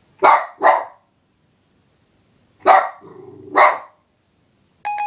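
A dog barking four times in two pairs, with a low growl between the third and fourth bark. A short electronic tone sounds near the end.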